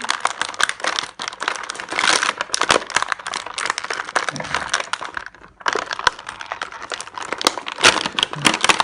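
Plastic toy packaging being crinkled, cracked and torn open by hand: a dense run of crackling snaps with a brief pause about five and a half seconds in.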